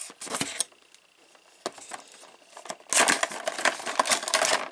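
Cardboard box and clear plastic blister tray rustling and scraping as an action-figure box is opened and its tray slid out: a few short scrapes, then loud continuous crinkling and sliding from about three seconds in.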